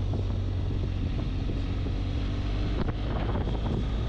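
BMW R1200GS flat-twin (boxer) engine running steadily under way, as a low drone mixed with wind rush over the microphone.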